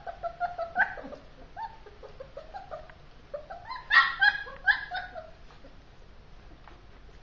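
Four-week-old German shepherd puppies crying: short, high-pitched whines and yelps, a run of them in the first second and a louder cluster about four to five seconds in.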